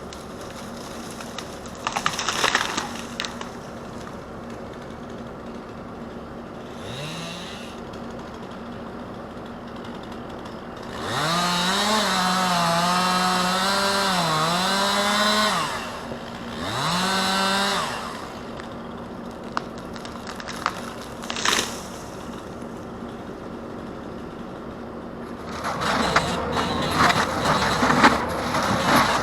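Stihl 261 C-M chainsaw revving: a short blip, then a long run at full throttle, with the pitch sagging and recovering as it cuts, then another brief rev. Near the end comes a stretch of clattering, crackling noise.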